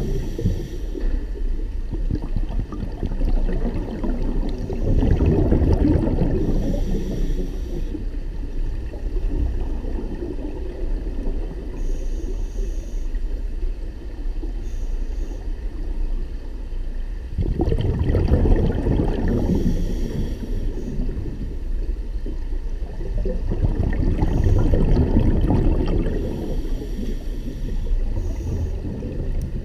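Scuba breathing heard underwater: muffled bubbling swells from regulator exhalations every several seconds, with short fainter hisses in between, over a steady low rumble.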